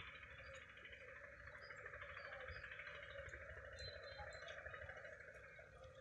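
Near silence: faint outdoor ambience, a steady faint hiss over a low, uneven rumble.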